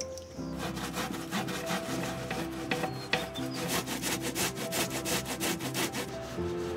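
Peeled kudzu root being grated by hand on a wood-framed grater in quick, regular rasping strokes, grinding the root into a wet pulp. The grating starts about half a second in and stops near the end.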